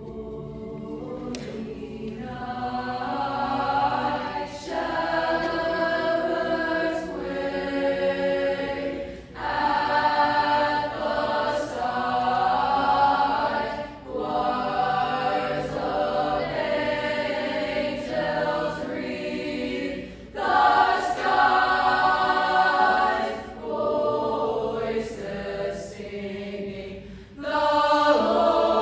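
Mixed-voice choir singing in parts, in sustained phrases with short breaks between them.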